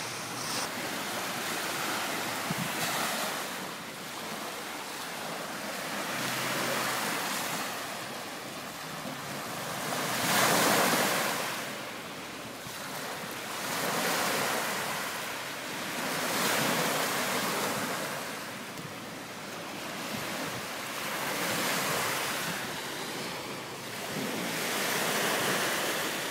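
Small sea waves washing onto a sand beach, swelling and fading every few seconds, loudest about ten seconds in.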